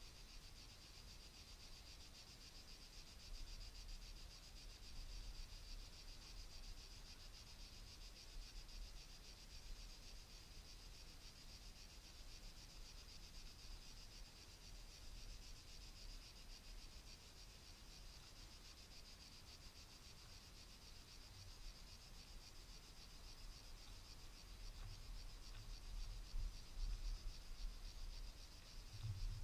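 Faint, steady chorus of cicadas, a continuous high shrill buzz, over a low rumble that grows near the end.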